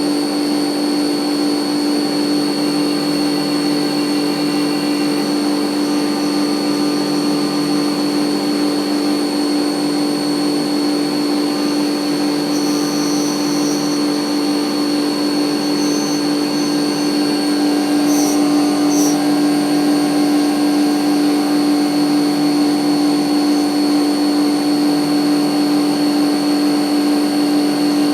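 CNC milling machine spindle running steadily while an end mill cuts a small pocket into a titanium pen body tube. Extra higher-pitched cutting tones come and go about halfway through, and the sound gets a little louder after that.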